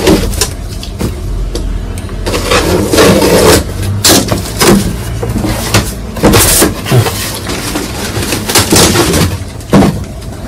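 Cardboard shipping box being opened by hand: packing tape cut, the flaps pulled open and a plastic-wrapped item drawn out, giving a string of scrapes, thumps and rustles.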